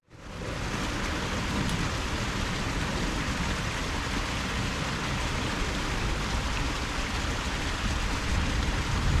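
Steady, even rushing of water that carries on unbroken after a brief dropout at the very start.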